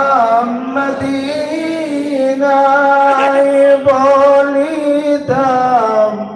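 A man singing a Bengali devotional salutation to the Prophet Muhammad (qiyam) into a microphone, with no instruments. He holds long, drawn-out notes and takes short breaks between phrases.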